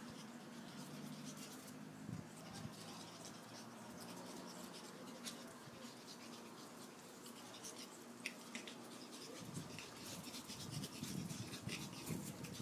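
Pug puppies play-fighting: faint scuffling and scratching of paws and claws on a concrete floor, with scattered small clicks, getting a little busier near the end.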